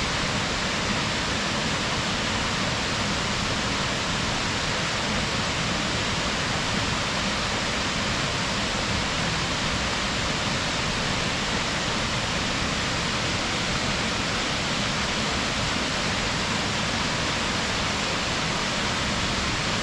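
Waterfall: water falling with a steady, unbroken rush.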